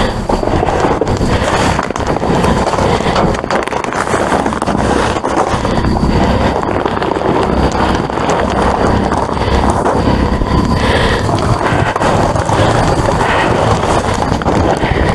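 Trash being rummaged through inside a dumpster: continuous rustling, scraping and clattering of bags, boards and debris, with many small knocks.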